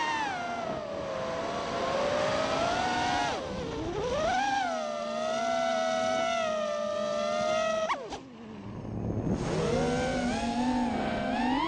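Four T-Motor F60 Pro 2500 kV brushless motors on a 5-inch FPV quad spinning DAL Cyclone 5046 props, a pitched whine that rises and falls with the throttle. About eight seconds in the pitch drops sharply as the throttle is chopped, then climbs back as the throttle is punched again.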